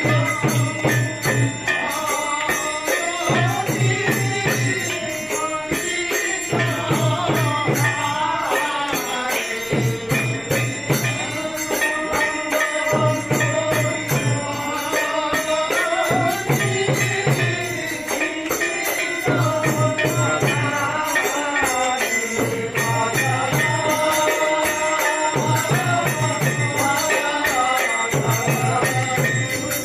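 Music with jingling bells keeping a fast, steady rhythm over a melody, and a low bass pulse repeating about every two seconds.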